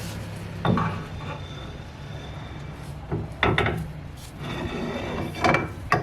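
Metal knocks and scraping as a Toyota Hilux rear axle shaft and brake backing plate are wiggled out of the axle housing: a handful of sharp clanks, a couple of them followed by a short metallic ring.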